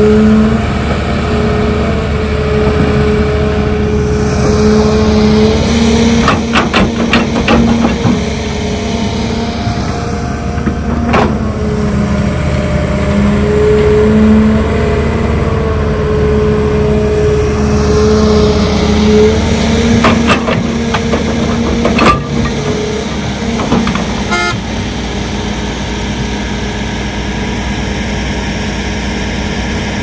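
Excavator's diesel engine running steadily with a constant whine, swelling and easing twice as the machine works. Sharp knocks come in a cluster about six to eight seconds in, once around eleven seconds, and again from about twenty to twenty-four seconds.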